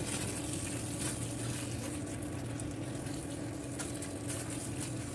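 Pasta in tomato sauce bubbling and sizzling in a nonstick frying pan while it is stirred with a silicone spatula, with a few soft scrapes, over a steady low hum.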